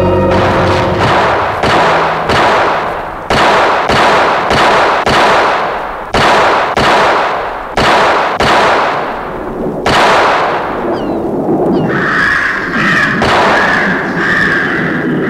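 Blacksmith's hammer striking on an anvil: a long series of heavy blows, roughly one and a half a second, each with a ringing, reverberant decay. The blows stop about ten seconds in, and a high, wavering squeal starts a couple of seconds later.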